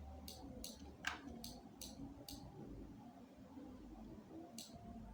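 Faint, short clicks from a computer mouse and keyboard in use: six in quick succession over the first two and a half seconds and one more near the end, over a low steady hum.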